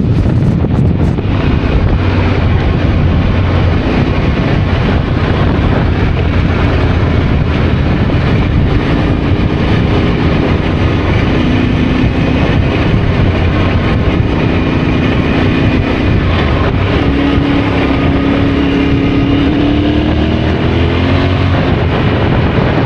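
Yamaha Ténéré adventure motorcycle being ridden, its engine note rising and falling under loud, steady wind and road noise.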